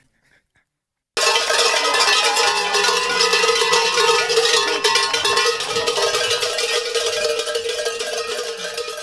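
Handheld cowbells shaken hard, clanging continuously. They start suddenly about a second in, after near silence, and grow slightly quieter near the end.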